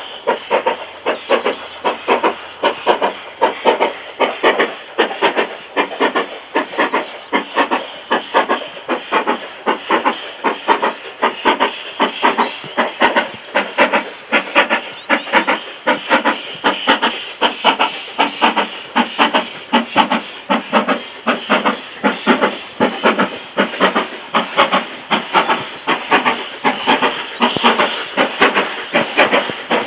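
Steam locomotive working hard on a steep climb: an even, unbroken rhythm of loud chimney exhaust beats with steam hiss.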